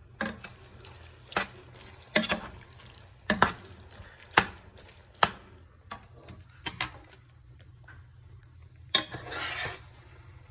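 A cooking utensil knocking and scraping against a pan as ground beef is stirred while it browns: sharp knocks every second or so, then a longer scrape near the end.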